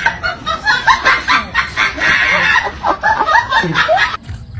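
Human laughter: rapid, choppy giggling bursts that stop abruptly about four seconds in.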